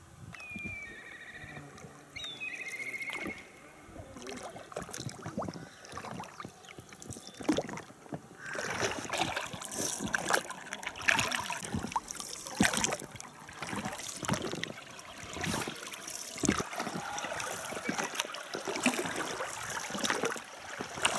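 Oars of an inflatable rowing boat dipping and pulling through river water, with splashes and drips that come thicker and louder from about eight seconds in.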